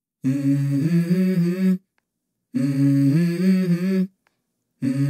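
Dubbed-in intro music: a short wordless hummed melody of two voices moving together in steps, repeated about every two and a half seconds with dead silence between phrases. It plays twice in full, and a third time begins near the end. No cooking sounds are heard.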